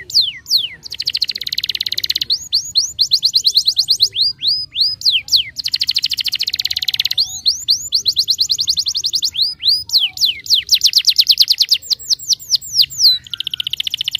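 Domestic canary singing a continuous, vigorous song: runs of very fast trills alternate with series of separate whistled notes that rise and then drop sharply, each run lasting a second or so.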